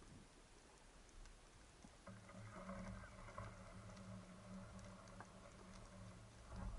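Faint underwater crackle of scattered clicks, joined about two seconds in by a steady low hum from a distant boat engine heard through the water.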